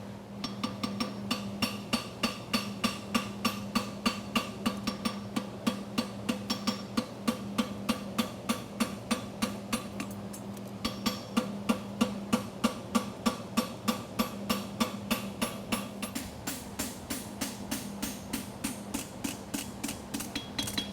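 Hand hammer striking a steel horseshoe on the anvil in a steady rhythm, about three ringing blows a second, while the farrier fullers the shoe's nail groove; the blows pause briefly just past the middle, then resume.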